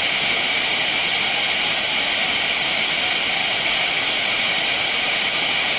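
Heavy rain pouring down: a steady, even hiss that holds without a break.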